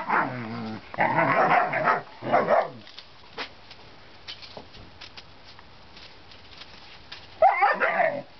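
Shepherd–Doberman mix puppies barking and yipping as they play rough, in several bursts over the first three seconds and again near the end, with a quieter stretch in between.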